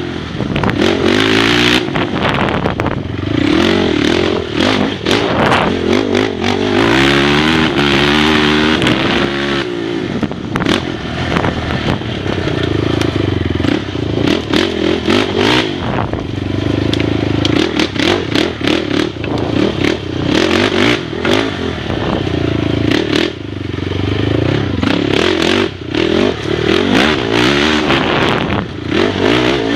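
Off-road dirt bike engine heard up close from the rider's helmet, revving up and dropping back again and again as the bike is ridden hard along a rough trail, with knocks and clatter from the bumps.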